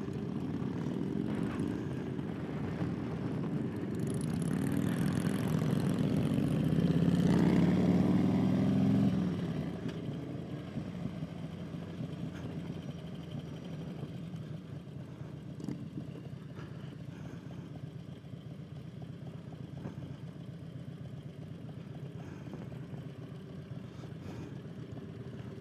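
Cruiser motorcycle engine heard from the rider's seat, rising in pitch and getting louder as it is throttled up, then cutting back suddenly about nine seconds in and running lower and steady as the bike slows.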